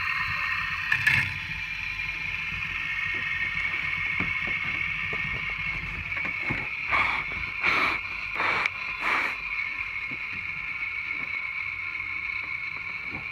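Two fidget spinners whirring steadily on their ball bearings as they spin freely on a metal rod, with a few short, louder hissing bursts about a second in and again around the middle.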